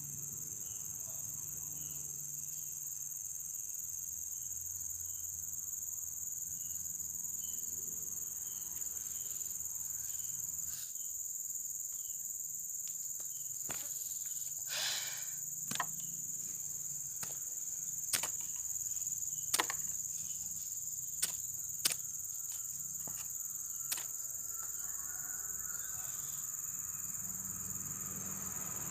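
Steady high-pitched insect chorus running throughout. About halfway through, a short burst of noise is followed by a series of sharp, scattered clicks.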